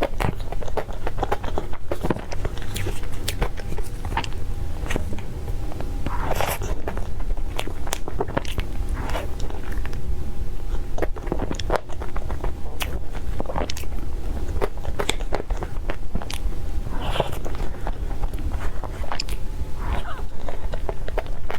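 Close-miked eating: a person biting and chewing, with frequent small wet clicks and crunches at an irregular pace.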